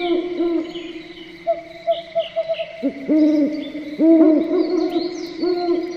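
Low hooting calls repeated in quick runs, several callers overlapping at slightly different pitches, over a steady high insect-like drone and faint higher chirps.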